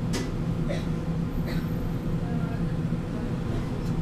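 Duewag R1.1 low-floor tram running between stops, heard from inside the car: a steady low hum, with a few brief sharp higher sounds in the first two seconds.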